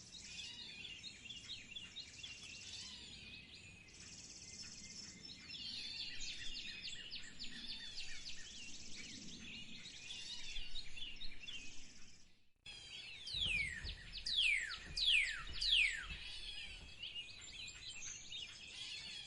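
A chorus of birds chirping and singing, many short quick calls overlapping. After a short break about two-thirds of the way through, a few loud whistled calls sweep steeply downward in pitch, one after another.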